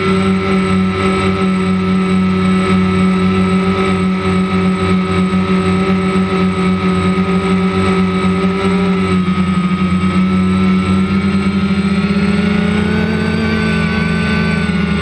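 DJI Phantom quadcopter's electric motors and propellers buzzing steadily, heard close up from the GoPro mounted on the drone. The pitch of the buzz shifts a little partway through as the motors change speed.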